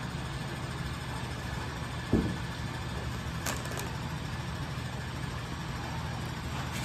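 Steady low mechanical hum of a running machine, with a soft thump about two seconds in and a faint click a little later.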